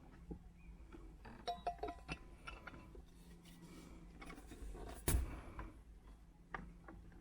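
Small clicks and clinks from handling a portable capsule espresso maker and its water bottle, with one sharp knock about five seconds in, over a faint steady low hum.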